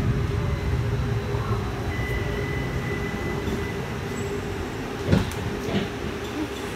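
Tempe streetcar running, heard from inside the car, its low rumble gradually dying down. A steady high tone sounds for about a second and a half about two seconds in, and a sharp knock comes about five seconds in.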